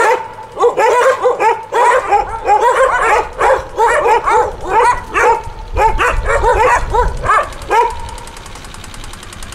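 Dogs barking, many short yapping barks in quick succession, stopping about eight seconds in.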